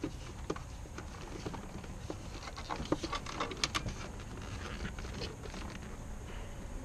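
Scattered light clicks and knocks as an old Panasonic car battery is worked loose and lifted out of an engine bay, with the busiest run of clicks about three seconds in.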